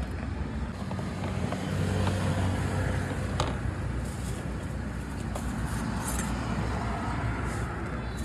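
A vehicle engine running steadily amid street noise, with a few light clicks.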